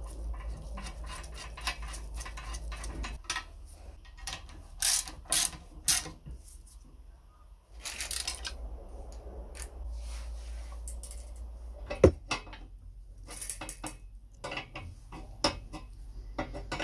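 Metal parts of a cast-iron washing mangle being handled and fitted: irregular clinks, clicks and short scrapes, with one sharp knock about two-thirds of the way through.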